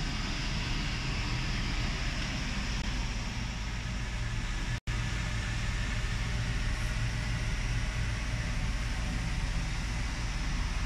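Steady mechanical hum with a hiss over it, cutting out for an instant about halfway through.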